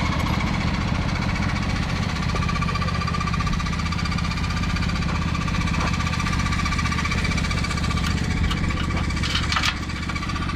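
Tractor engine running steadily with a knocking rumble and a steady high whine, with a few sharp clicks near the end.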